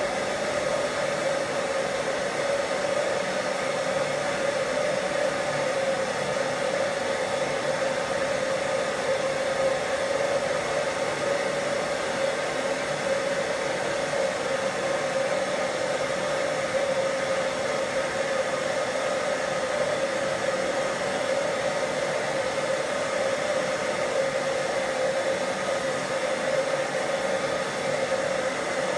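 Forge burner running steadily, a constant rushing noise with an even hum through it, while a titanium piece heats toward a glow.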